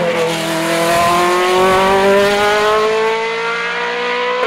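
Hill-climb racing prototype's engine accelerating hard: a quick drop in pitch at a gear change right at the start, then one long steady rise in pitch as it pulls through the next gear.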